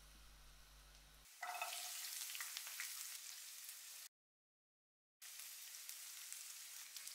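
Chopped onion going into hot oil in a frying pan with ginger and garlic: after a faint hum, a loud frying sizzle with spitting crackles starts suddenly about a second in. The sizzle cuts to dead silence for about a second midway, then resumes.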